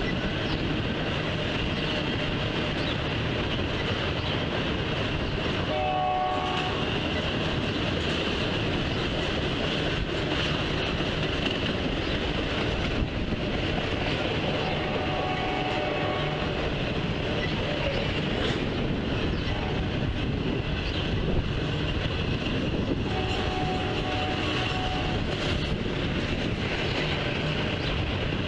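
Double-stack intermodal train's well cars rolling past: a steady rumble and clatter of wheels on rail. A few brief, faint tones sound over it: once about a fifth of the way in, again around halfway, and again past three-quarters.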